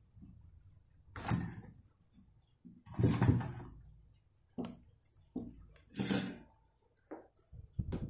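Handling noise from working on an opened cassette player: irregular rustles and light knocks as wires are moved against its metal chassis, half a dozen separate bumps a second or so apart.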